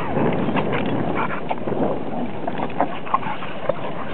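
A Plott hound and a boxer play-fighting and vocalizing as they wrestle, with a few short higher whines late on.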